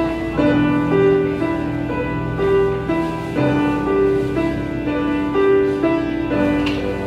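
Solo piano played live: a melody over sustained chords, the notes ringing on and overlapping.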